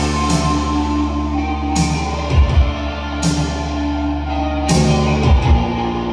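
Post-punk band playing live, an instrumental passage without vocals: a steady bass line and guitar over drums, with a cymbal crash and a low drum hit about every three seconds.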